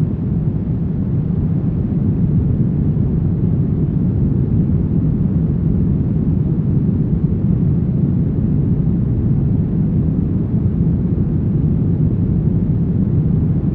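Brown noise: a steady, deep hiss with most of its weight in the low end and little in the highs, even and unchanging.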